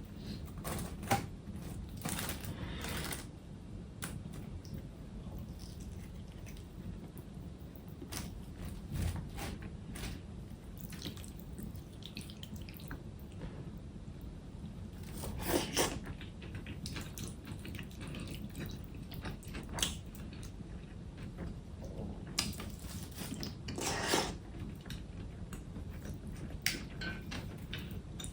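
Eating sounds close to the microphone: wet chewing and slurping of cold noodles and dishes, with a few sharp clicks scattered through, over a steady low hum.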